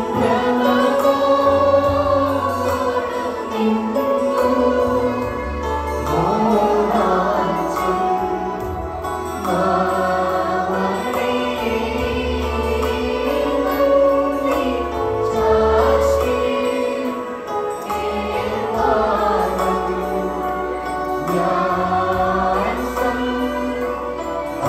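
Orthodox church choir singing a hymn in phrases a few seconds long, the melody rising and falling.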